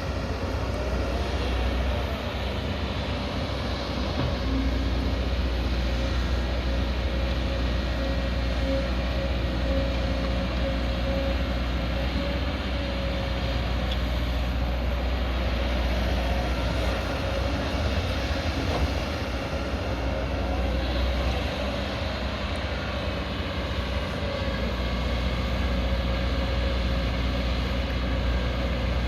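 Diesel engine of a 22-tonne-class crawler excavator running steadily while it works, with a steady whine held above the low engine note.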